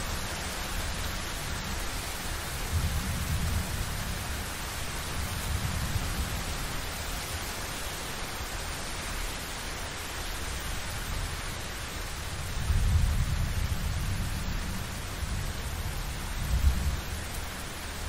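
Thunderstorm: a steady hiss of rain with low rumbles of thunder, one about three seconds in and a longer swell around thirteen seconds, and a brief louder peak of thunder near the end.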